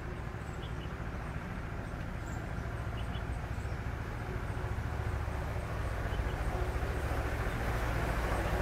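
Indian Railways WAP-7 electric locomotive and its passenger train approaching, a low rumble that grows steadily louder.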